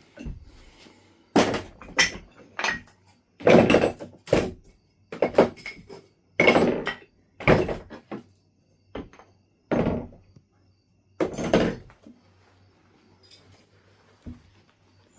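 Knife River Flint being knapped by hand into a point: about a dozen short, sharp sounds of stone being flaked, spaced roughly a second apart, then a few quieter ones near the end.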